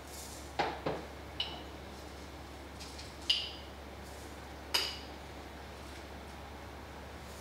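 Glass containers and kitchen utensils clinking as they are handled at the counter: a few light knocks in the first second and a half, then two brighter clinks with a short glassy ring around the middle. A faint low hum runs underneath.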